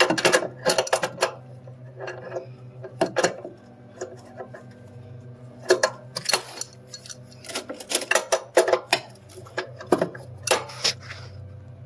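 Metal hand tools and parts clinking and rattling in short bursts, about a dozen clusters of sharp clicks, over a steady low hum.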